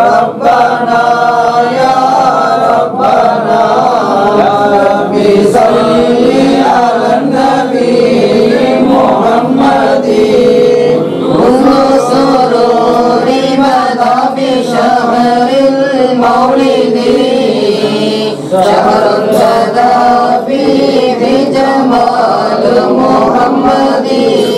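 A group of men chanting Arabic salutations on the Prophet (salawat) in unison, a continuous sung devotional chorus of a Mawlid recitation.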